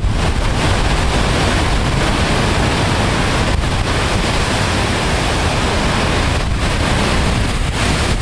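Heavy storm surf breaking and churning on rocks in a steady rush, with wind buffeting the microphone.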